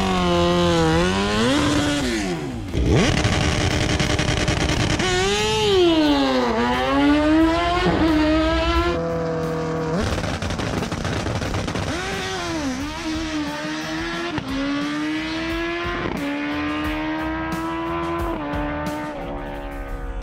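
Drag-racing motorcycle engines revving hard, the engine note sweeping up and down several times, then held nearly steady with sharp crackles near the end.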